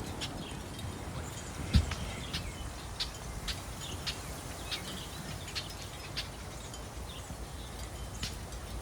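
Outdoor ambience: a small bird chirping in short high notes, about one every half second, over a low steady rumble. A single low thump comes just under two seconds in.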